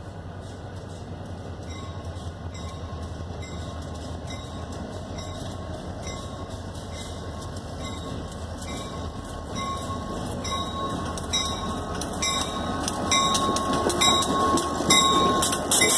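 Lehigh Railway diesel locomotives approaching and passing close by. A low engine rumble grows steadily louder, and sharp wheel clicks over the rail joints come more and more often in the last few seconds as the lead unit goes by.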